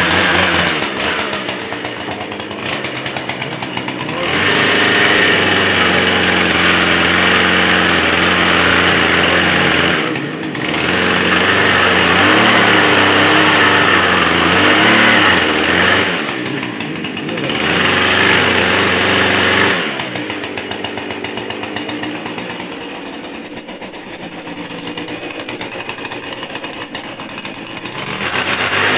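Husqvarna 240 two-stroke chainsaw with a 12-inch dime-tip carving bar, running and being throttled up to full revs three times in long stretches, dropping back to a lower idle between and for several seconds afterwards, then picking up again near the end.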